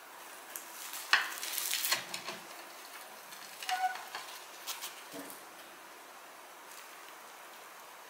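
Kitchen clatter: a handful of short clinks and knocks of utensils and dishes over a steady hiss, one clink ringing briefly about four seconds in.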